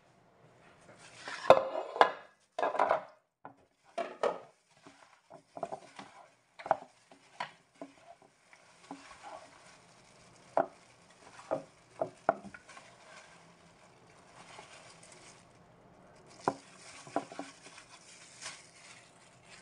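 Irregular knocks, clatters and soft rustling as raw chicken pieces are handled with plastic-gloved hands in a large bowl, the loudest knocks in the first few seconds.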